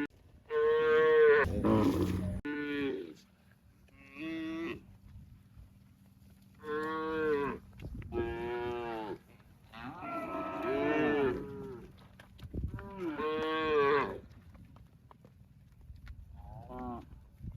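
Cattle mooing: a run of about seven drawn-out moos, some overlapping as two animals call at once, with a short crackle near the start.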